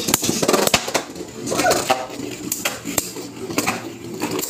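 Super Hyperion and Cyclone Belial Beyblade Burst tops, just launched into a plastic stadium, spinning and clashing against each other and the stadium walls in a rapid, uneven run of sharp clacks.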